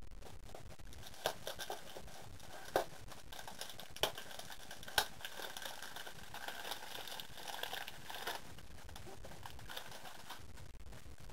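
Perfume gift boxes in shiny plastic wrap being picked up and moved by hand: a few sharp knocks in the first five seconds, then a stretch of crinkling packaging.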